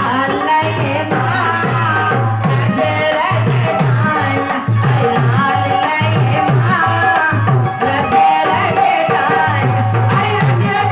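Devotional bhajan music: a steady beat of low drum strokes with rattle-type percussion and a wavering sung melody.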